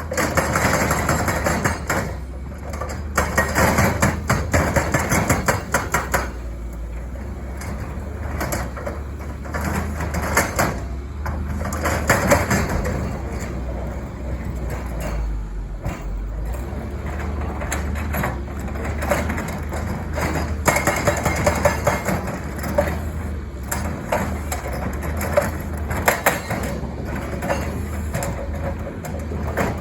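Caterpillar 320 excavator's diesel engine running steadily while its hydraulic breaker hammers in bursts of rapid blows.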